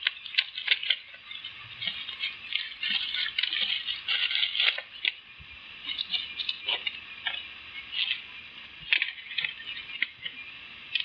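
Irregular small clicks, rattles and plastic rustling from handling the battery's electrolyte (acid) pack and its packaging.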